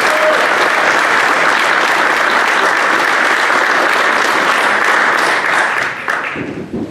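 Audience applauding, fading out about six seconds in.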